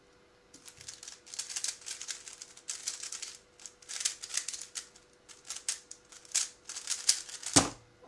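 MoYu Weilong WR M 3x3 speedcube being turned very fast by hand: rapid plastic clicking and clacking in bursts with short pauses. It ends in a single sharp knock near the end as the solve is stopped.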